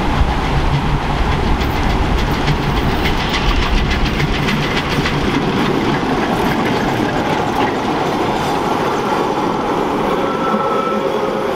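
Rhaetian Railway steam train passing close by: the steam locomotive's beats and the wheels clacking in a quick, even rhythm, then the historic carriages rolling past with a faint thin wheel squeal near the end.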